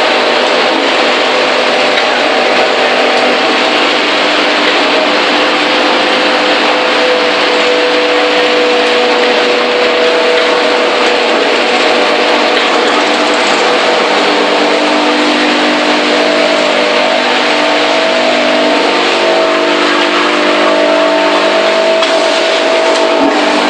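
Corn-stick production machinery running: a loud, steady mechanical din with several humming tones that change pitch a few times along the way.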